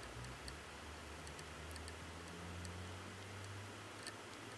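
Newborn kittens suckling at their mother: faint, irregular high clicks, several a second, over a low hum.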